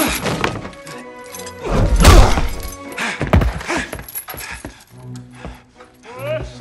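Re-dubbed movie fight sound effects over dramatic music: a few sharp hits, then a loud crash with breaking and shattering about two seconds in, and another heavy hit about a second later. Wavering operatic singing comes in near the end.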